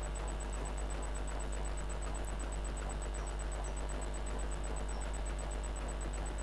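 Steady low electrical hum at mains frequency with its overtones, under a faint constant high-pitched whine, from the bench test of a computer power supply under load.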